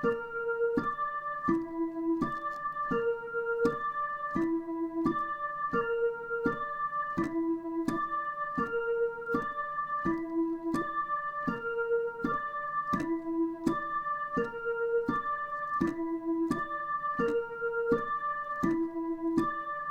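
Dutch ambulance siren sounding as a broken chord: short electronic tones stepping through the notes of a chord one after another, about three notes a second, the same pattern cycling round over and over.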